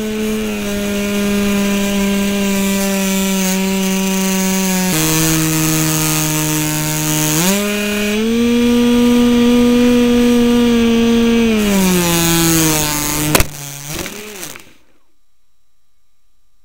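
RC model plane engine buzzing in flight. Its pitch drops about five seconds in, climbs again about seven and a half seconds in, and eases down near the twelve-second mark. About 13 seconds in there is a sharp knock, and the engine dies out a second later.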